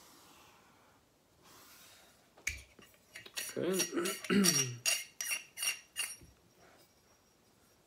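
Metal lightsaber hilt parts clinking and knocking as the hilt is handled, about a dozen sharp clinks with a light metallic ring over three or four seconds, starting a couple of seconds in. A brief murmured voice sounds in the middle of them.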